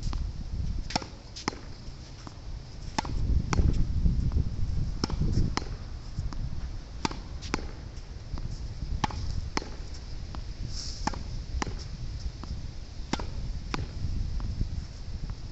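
Wall-tennis rally: a tennis ball struck by a racket and rebounding off a practice wall, heard as pairs of sharp knocks about half a second apart, a pair roughly every two seconds. Strong wind rumbles on the microphone throughout, strongest a few seconds in.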